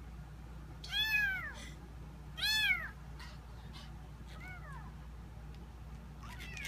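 Kittens mewing: four short, high-pitched mews that rise and fall, about a second and a half apart, the second the loudest and the last two faint.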